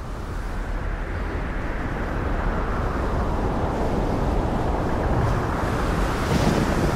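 Storm at sea: a steady rush of gale-force wind and heavy waves breaking against a ship's bow, with a deep rumble underneath, building over the first couple of seconds.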